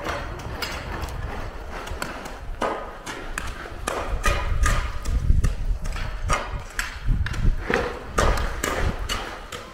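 Snow shovels scraping and knocking on a snowy, paved courtyard, mixed with footsteps, in an irregular run of short knocks and scrapes over a low rumble.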